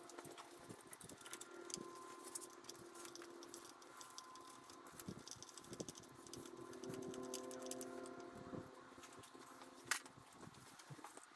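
Faint, scattered clicks and rattles of a ratchet wrench with an extension and spark plug socket turning a motorcycle spark plug, with one sharper metallic click near ten seconds in.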